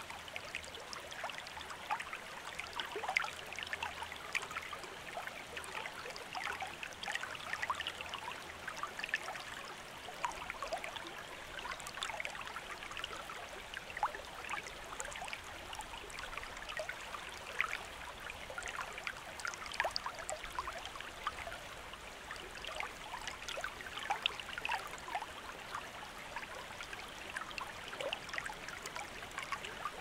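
Small rocky stream flowing, a steady rush of water dotted with many quick little splashes and plinks as it runs over stones.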